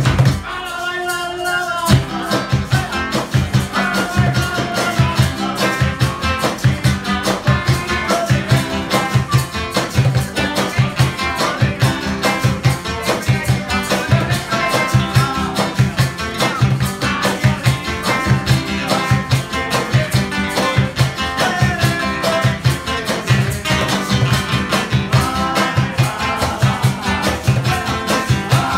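Live Andean-style band music: two acoustic guitars strumming and picking over a steady cajón beat, with maracas shaking. The beat drops out briefly near the start and comes back about two seconds in.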